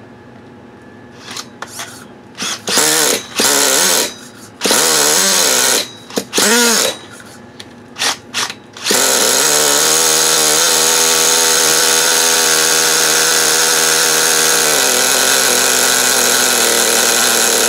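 O.S. CV-R .18 single-cylinder two-stroke nitro glow engine spun over by a cordless drill in several short bursts, then catching on its first fire and running steadily. The throttle is held slightly open to keep it running, because the idle is set a little too low.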